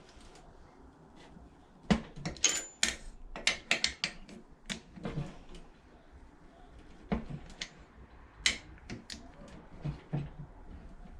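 Torque wrench ratcheting on the cylinder head bolts of a Predator 212 engine: irregular runs of sharp metallic clicks and clinks as the bolts are tightened.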